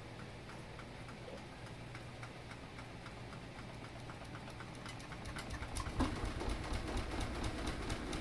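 Samsung front-load washer starting to spin with a single light towel: a steady motor and drum hum with a regular knocking that grows louder about six seconds in as the drum goes out of balance and the machine starts shaking. The owners trace the shaking to worn drum shock absorbers.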